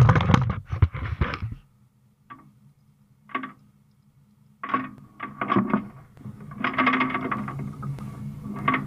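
Steel tie-down chain clanking and rattling in several bursts as it is dragged and draped over a dozer's track idler, with single clinks between the bursts. A steady low hum starts about two seconds in.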